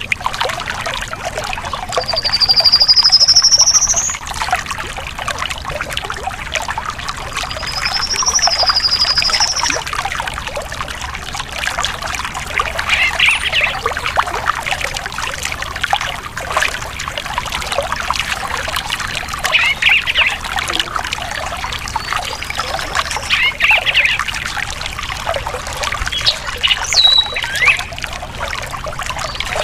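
Water trickling and pouring steadily over rocks in a stream, with a songbird whistling over it. There is a long rising whistle about two seconds in, which is the loudest sound. Another whistled phrase comes around eight seconds, followed by a few short chirps and a falling note near the end.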